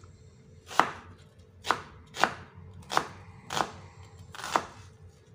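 Knife slicing half an onion on a wooden cutting board: six separate cuts, each a short knock of the blade onto the board, spaced unevenly about every half-second to second.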